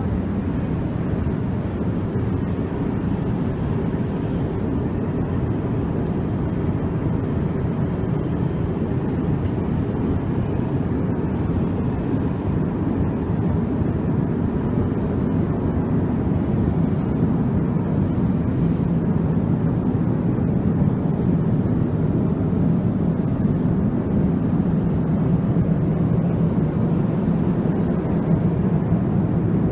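Steady cabin noise of an Airbus A350-XWB in flight: an even, low rush of airflow and engine noise heard inside the passenger cabin, with a faint low hum beneath it.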